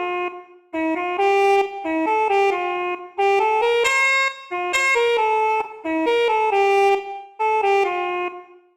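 Telolet bus air-horn melody played from a sample: bright, horn-like notes stepping up and down in short phrases with brief breaks between them, the last note fading out near the end.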